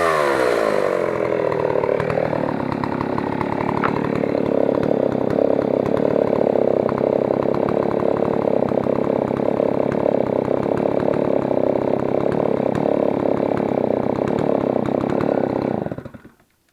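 Jobu L860 chainsaw engine coming down from high revs as the throttle is let off, then idling steadily for a long stretch before being switched off abruptly near the end.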